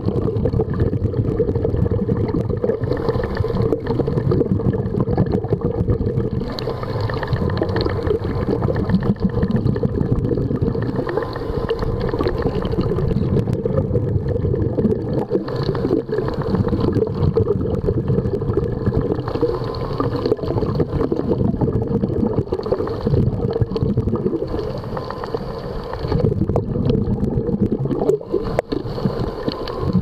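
Underwater ambience picked up by a camera filming below the sea surface: a steady low rush with scattered faint clicks.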